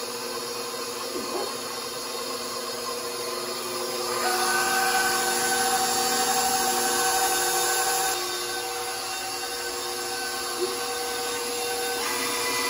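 Electric stand mixer running with its paddle attachment, beating marshmallow fluff into buttercream: a steady motor whine, louder for a few seconds in the middle.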